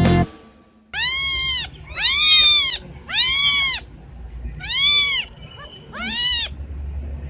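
Young kittens meowing during bottle feeding: five loud, high meows, each rising then falling in pitch, the first about a second in and the last two shorter and quieter.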